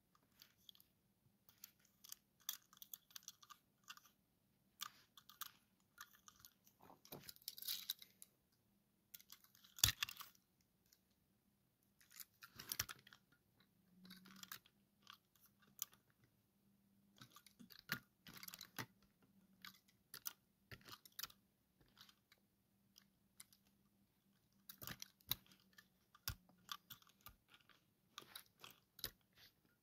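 Faint, irregular clicks, taps and rustles of fingers handling small die-cast toy cars and moving them about on carpet, with one sharper knock about ten seconds in.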